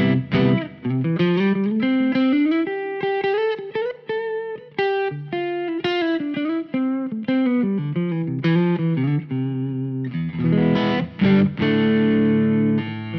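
Fano Omnis MG6 electric guitar with P90 pickups played through an amplifier: picked single-note lines, including a climbing run, then strummed chords near the end that ring on.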